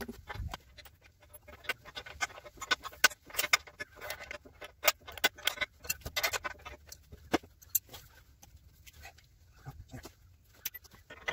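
Irregular light clicks and knocks of hand tools and steel parts being handled: a wrench or pliers at a bracket, then a clevis pin and hairpin clip worked at a hydraulic cylinder end. The clicks thin out after about two-thirds of the way through.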